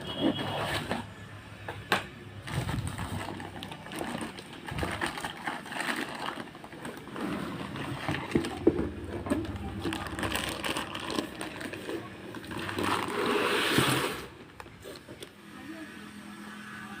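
Parts of a new mixer grinder being handled: irregular clicks and knocks of jars, lids and base, with a louder noisy stretch about thirteen seconds in.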